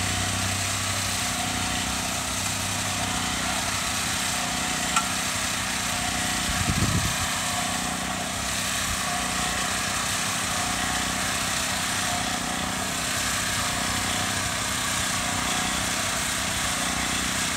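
Small gasoline engine running steadily at a constant speed, with a brief low rumble about seven seconds in.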